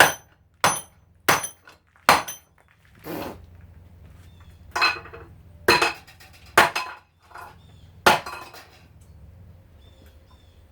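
Hammer blows on the metal parts of a garbage disposal to knock out its bearing: about nine sharp metallic strikes at uneven intervals, each ringing briefly, stopping about eight seconds in.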